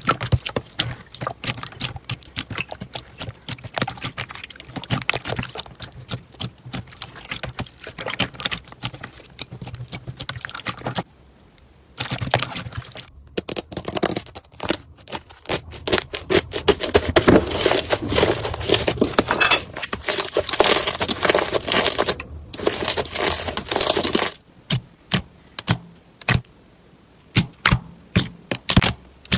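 Slime being squeezed, pressed and poked by hands, making dense crackling and clicking. It pauses briefly near the middle, grows louder and denser after that, then thins to scattered single clicks near the end.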